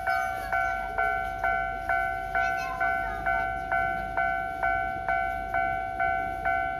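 Japanese railway level-crossing warning bell ringing, an electronic two-tone ding struck about twice a second, each stroke ringing out before the next: the signal that a train is approaching and the barriers are down.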